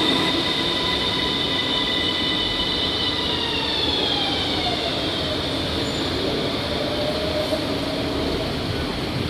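MRT Blue Line electric metro train's motors whining, steady for about three seconds and then falling in pitch as the train slows into the station.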